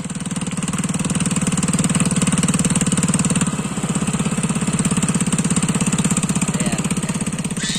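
Small boat engine running steadily under way with a fast, even putter; it builds up over the first second.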